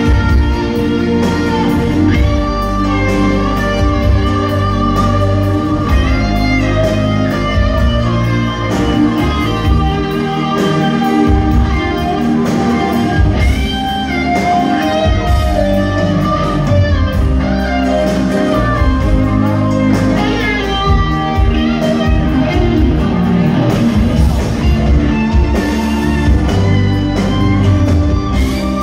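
Live rock band playing, heard from the audience: guitars to the fore over bass guitar, keyboards and drums, at a steady loud level.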